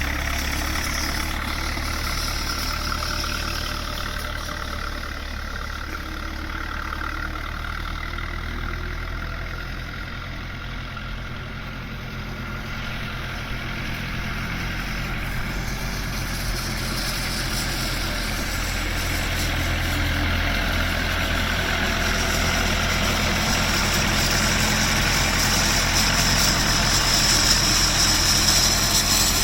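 Standard Fordson tractor's four-cylinder side-valve engine running steadily, getting louder toward the end.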